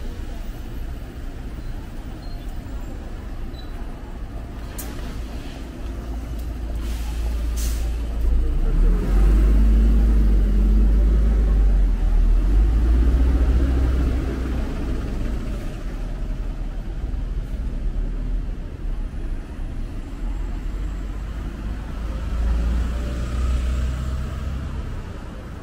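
City street traffic with a heavy vehicle's engine passing close. It is loudest about nine to fourteen seconds in, where its engine rises in pitch twice as it accelerates. A few short high hisses come a few seconds before.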